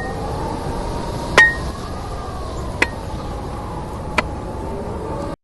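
Four sharp metallic clinks about a second and a half apart, the first two ringing briefly, over a steady rushing noise with slowly wavering tones. Everything cuts off suddenly near the end.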